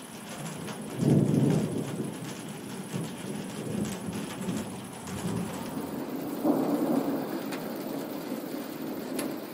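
Thunder rumbling over steady rain. A loud rumble breaks about a second in and fades, and a second rumble swells about six and a half seconds in.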